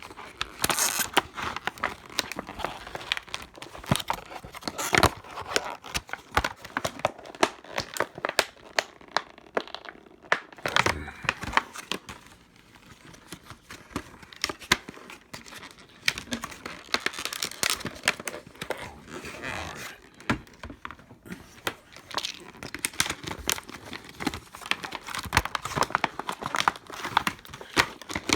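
Hard plastic blister packaging being crinkled, bent and torn by hand, a dense run of irregular crackles and snaps with a quieter stretch about halfway through. The plastic is so stiff that it resists being opened by hand.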